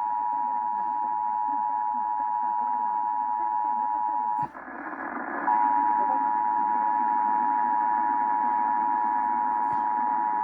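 Emergency Alert System attention signal from a monthly test, received off a radio broadcast: a steady two-tone alert pitched near 1 kHz (853 and 960 Hz). A little under halfway through, the tone drops out for about a second in a burst of hiss, then comes back.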